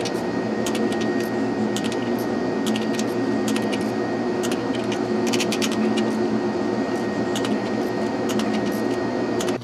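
Torque wrench ratcheting and clicking in short runs as the cylinder head bolts are tightened, over a steady loud mechanical hum.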